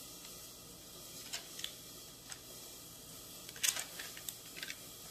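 Metal spoon smoothing cooked grits in a parchment-lined skillet: a few faint clicks and scrapes, the loudest a short cluster about three and a half seconds in.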